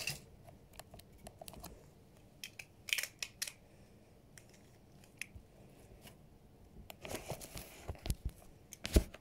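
Handling noise of small objects being picked up and moved: scattered light clicks and rustles, with a sharper click near the end.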